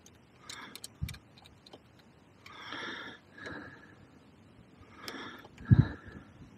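A person breathing hard through the nose, two long noisy breaths in the middle, with a few light clicks early on and a sharp low thump near the end, the loudest sound.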